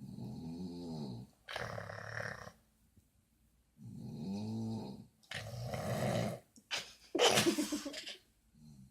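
Snoring: about three slow breath cycles, each a pitched, rattling in-breath followed by a noisier, hissing out-breath.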